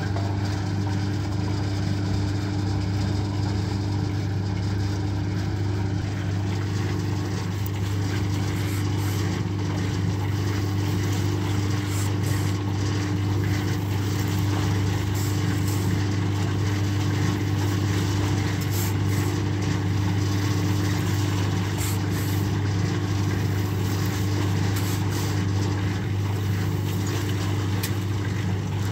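Portable drum concrete mixer running steadily, its drive giving a constant low hum, with short scrapes and clicks from about a third of the way in.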